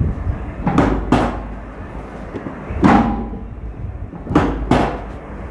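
Five short, dull thumps: a quick pair about a second in, a single one near the middle and another quick pair near the end.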